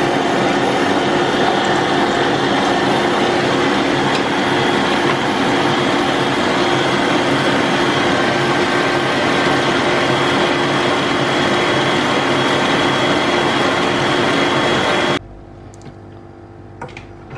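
Stand mixer with a wire whisk running at high speed, beating egg whites and sugar into a stiff meringue: a steady motor whir with the whisk churning in a steel bowl. It cuts off suddenly about fifteen seconds in as the mixer is switched off.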